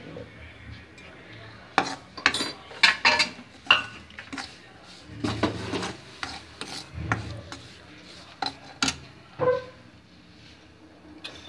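A utensil stirring and scraping ground poppy seeds and roasted chickpea powder in hot ghee in a kadhai: irregular scrapes with sharp knocks against the pan, most of them in the middle of the stretch.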